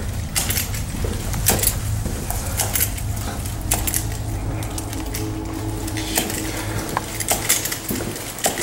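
Small metal items carried by a walking person jingling and clinking irregularly with his steps, over a steady low hum.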